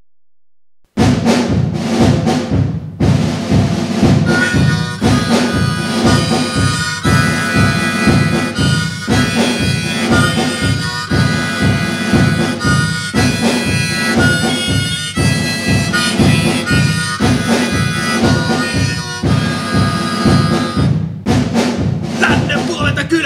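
Folk music intro led by a harmonica playing held notes over a steady rhythmic accompaniment, starting about a second in.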